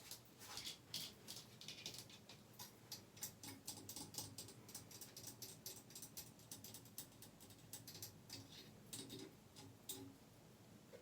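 Fast, light ASMR tapping and scratching on objects: quick, irregular clicks, several a second, that thin out near the end.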